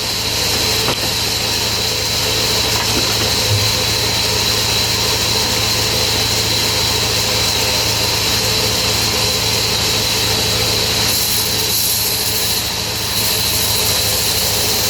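Sawmill saw machinery running steadily: a constant hum with a high whine above it.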